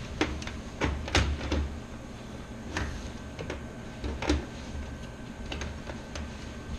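Scattered sharp clicks and knocks of hardware being handled and fitted inside a PC case, most of them in the first second and a half. A low steady hum runs underneath.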